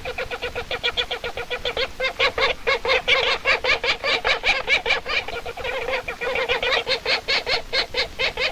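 Black woodpecker calling in a fast, unbroken run of short, sharp notes, about eight to ten a second, louder through the middle: an alarm at a passing kite.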